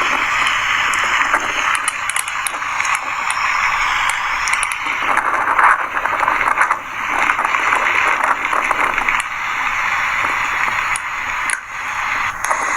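Steady rushing hiss that swells and dips every few seconds, with faint crackles over it.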